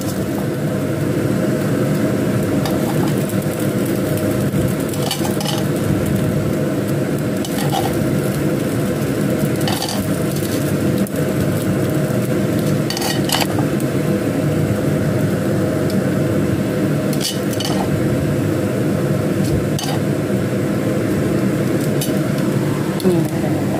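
Radish cakes sizzling steadily in a nonstick frying pan. A metal utensil clicks and scrapes against the pan and a ceramic plate every few seconds as the pieces are lifted out.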